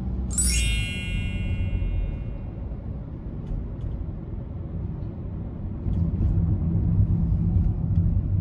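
Low, steady road rumble of a car driving, heard from inside the cabin, growing louder from about six seconds in. About half a second in, a bright sparkling chime sweeps down and rings out over a couple of seconds.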